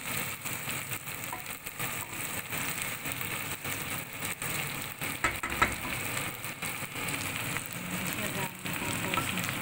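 Chicken wings sizzling as they brown in oil in a stainless steel pot while being stirred with a wooden spoon, with two sharper knocks about five seconds in.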